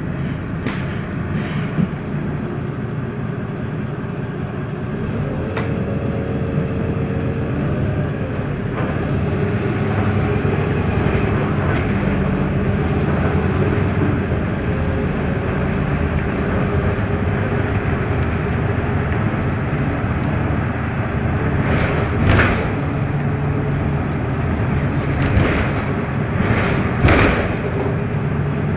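Inside a VDL Citea 12 m city bus under way: a steady engine and road rumble that grows a little louder about a third of the way in, with several sharp knocks and rattles in the last third.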